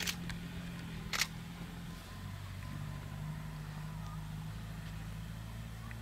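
A vehicle engine idling with a steady low hum, with two sharp camera shutter clicks: one at the start and one about a second in.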